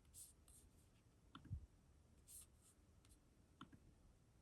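Near silence: room tone with a few faint computer-mouse clicks and a soft low thump.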